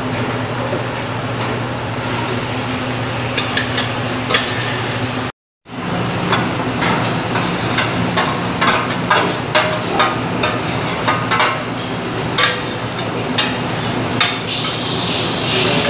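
Vegetables frying in a stainless pan on a commercial gas range, stirred with a metal utensil that clicks and scrapes against the pan, over a steady low hum. A louder sizzle starts near the end as more vegetables go into the hot oil.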